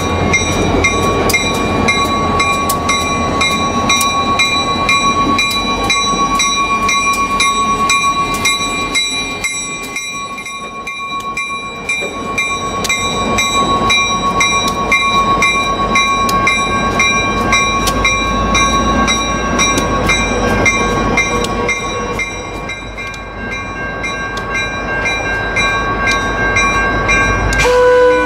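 A train running on the rails, with steady clicking and a steady whine throughout. Its horn starts to sound near the end.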